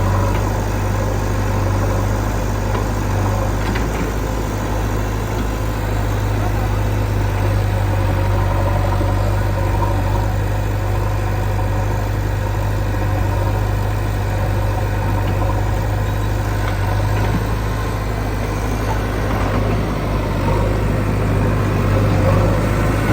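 Diesel engine of a backhoe loader or tractor running steadily with a deep, even hum, a little louder near the end.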